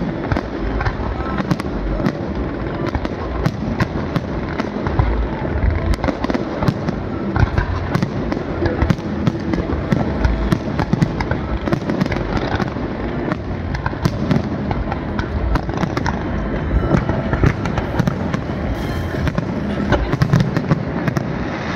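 Fireworks display: aerial shells bursting in quick succession, many sharp bangs and crackles over a constant low rumble.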